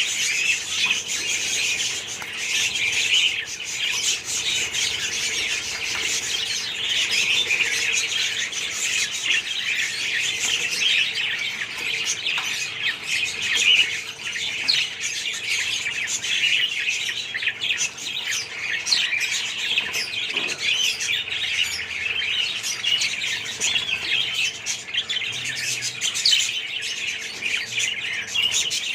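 A colony of budgerigars chattering continuously, many birds calling over one another in a dense, unbroken warble of short high chirps.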